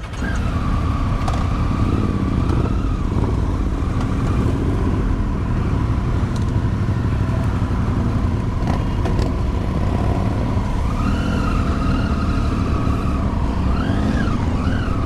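Motorcycle engines running, a loud, steady low rumble with a wavering higher tone over it.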